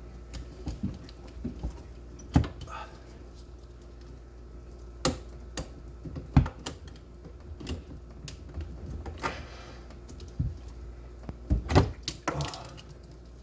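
Irregular clicks and knocks from hands and tools working on PEX supply lines inside a sink cabinet, with a few louder knocks among lighter taps.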